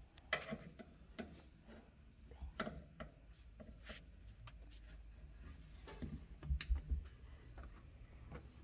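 Scattered scrapes, rubs and small clicks of a hand tool and hands working a rubber windshield seal onto the glass edge, with a few dull low thumps about six and a half seconds in, the loudest part.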